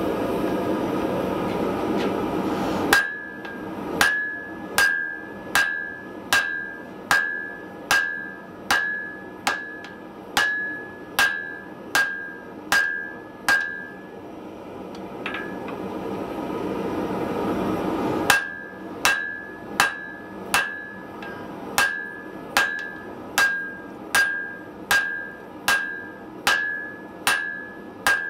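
Hand hammer forging a red-hot wrought iron bar on a steel anvil: steady blows about 0.8 s apart, each with a short ringing note from the anvil. The blows start about three seconds in after a steady rushing noise, pause for about four seconds midway while the rushing noise swells, then resume.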